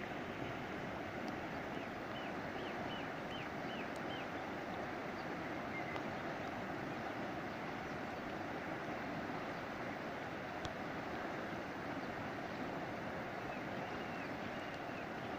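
Steady rush of a shallow, fast river running over stones and small rapids. A run of about six faint high chirps sounds a couple of seconds in, and a few more near the end.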